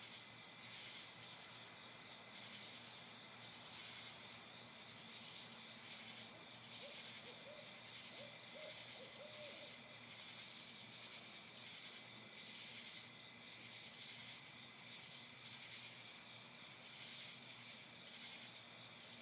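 An owl hooting faintly, a short run of about five low notes, over the steady high chirring of night insects.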